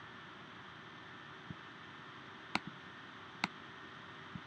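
Faint steady whir of a computer's fan, heard as a hiss, with a few sharp mouse clicks; the two loudest come about two and a half and three and a half seconds in.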